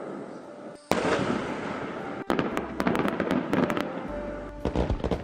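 Dubbed sound effects: a run of sharp firecracker-like cracks and pops over music, with the sound cutting abruptly from one effect to the next twice.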